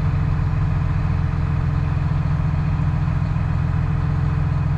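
Massey Ferguson 7724S tractor's six-cylinder diesel engine idling steadily, a constant deep hum.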